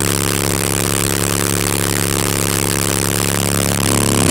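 Soundstream XXX 15-inch subwoofers driven hard by a Power Acoustik EG1-10000D amplifier, playing a steady 35 Hz test tone during a clamp (output power) test. It is a buzzy low drone that gets a little louder near the end.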